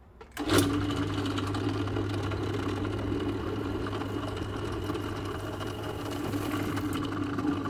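Bench pedestal drill (drill press) switched on about half a second in, its electric motor then running at a steady hum.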